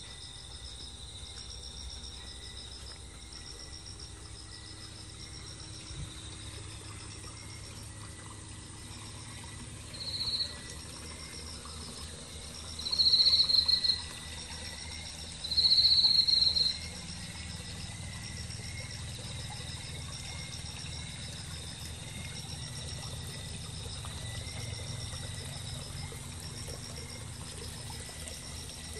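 Night insects such as crickets chirping in a steady, even pulse, with three louder shrill calls cutting in over them, the first short and the other two longer, a few seconds apart. Toward the end the soft trickle of pond water joins in.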